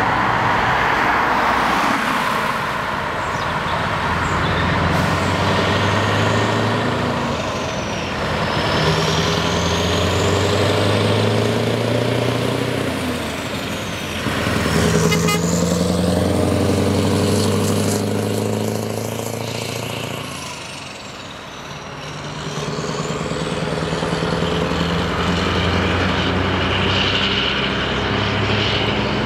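Scania R500 V8 truck pulling a loaded semi-trailer, accelerating away through the gears: the engine note climbs, drops back at each upshift about three times, and carries on pulling as the truck passes and draws away.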